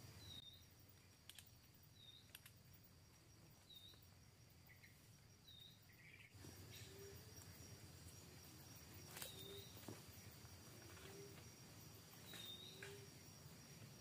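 Faint forest ambience: insects buzz steadily while a bird gives a short high call again and again, roughly every two seconds. From about six seconds in, a low, short rising call also repeats at a similar pace, and a few faint clicks come from handling the tripod and rifle.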